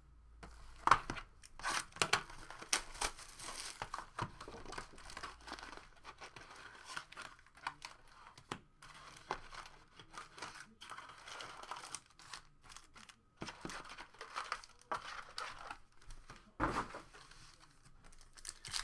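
Foil trading-card packs crinkling and wrapping tearing as a hobby box is opened and its packs are pulled out and handled, in an irregular run of crackles with a sharp crackle about a second in and another near the end.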